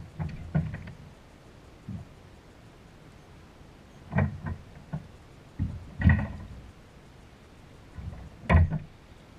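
Irregular knocks and bumps on a plastic fishing kayak, several short thumps spread out with the loudest about six and eight and a half seconds in.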